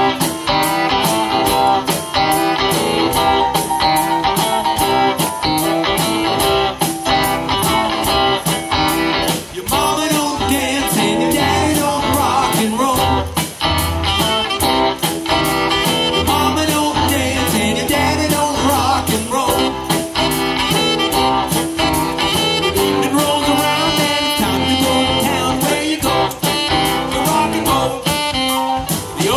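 Live band playing an upbeat rock and roll song, with electric guitars, keyboard and a steady drum beat. A man sings lead from about ten seconds in.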